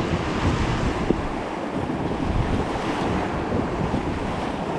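Fast high-water river current rushing steadily around a raft, with wind buffeting the microphone.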